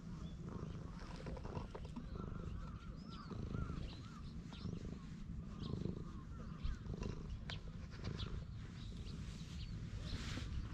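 Tabby cat purring steadily close to the microphone while being stroked: a low throbbing rumble that shows the cat is content.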